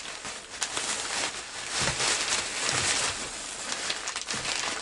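Thin plastic shopping bag crinkling and rustling as a hand rummages through it.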